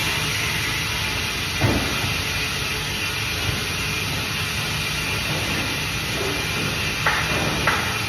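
Band saw for cutting fish running with a steady hiss and hum, one thump about a second and a half in and a few short knocks near the end.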